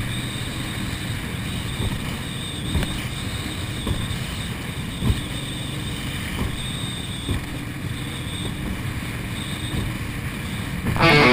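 Speedboat running at speed over choppy water: steady engine noise mixed with rushing water, spray and wind buffeting the microphone, with a few scattered thumps as the hull meets the waves.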